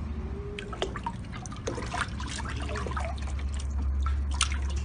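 Water splashing and sloshing in a plastic tub as a large fish thrashes under a cat's paw, the splashes getting busier and louder toward the end, over a low steady hum.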